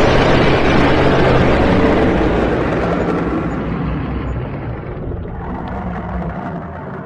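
Dragon sound effect: a loud, rushing noise over a low rumble that sets in just before and slowly fades away over several seconds.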